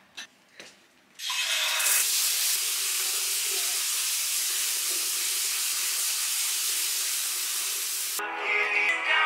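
Shower water running: a steady, loud hiss that starts suddenly a little over a second in and cuts off near the end.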